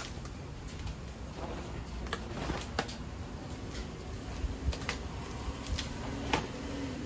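Cardboard and packaging being handled: a cardboard speaker-cutout template lifted and turned over a cardboard box, with rustling and a scattering of sharp clicks and taps.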